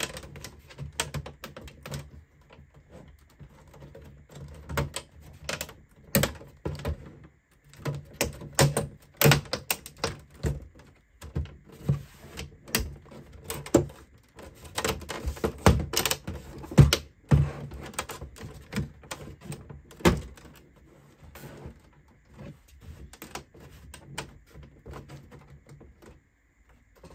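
Plastic rear cover of a Dell OptiPlex 7440 all-in-one computer being pressed back on by hand: a long, irregular run of clicks and snaps as its clips seat around the edges, some louder than others.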